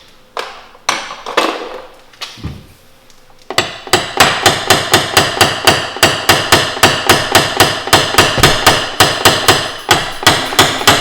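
Paintless dent repair tap-down: a small hammer tapping a knockdown tool against the car's body panel. A few scattered knocks at first, then about three and a half seconds in a rapid, even run of taps, roughly five a second.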